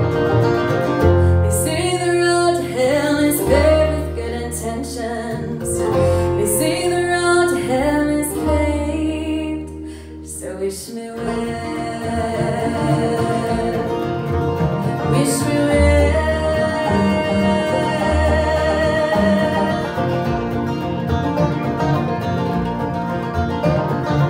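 Live bluegrass band playing acoustic guitar, mandolin, banjo and upright bass, with a woman singing lead. The singing falls away after a brief dip in level about ten seconds in, and the instruments play on.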